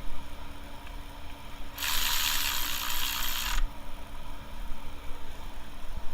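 Ratchet wrench clicking as it works on the spark plugs, with a burst of loud hissing about two seconds in that lasts under two seconds.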